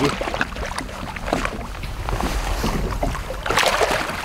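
Lake water splashing and sloshing as a musky is handled in a landing net beside a boat, with a louder burst of splashing near the end.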